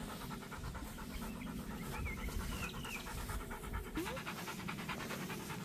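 Rottweiler panting in quick, even breaths.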